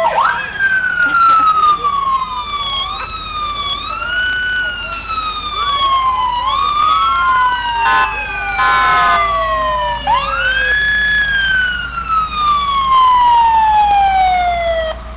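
Several fire truck sirens sounding at once and overlapping, each rising quickly in pitch and then winding slowly down. A brief steady horn-like blast comes about halfway through.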